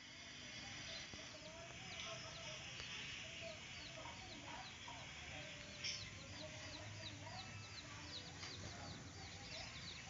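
Faint background birds calling. A rapid series of short high chirps, about three a second, fills the second half over lower wavering calls.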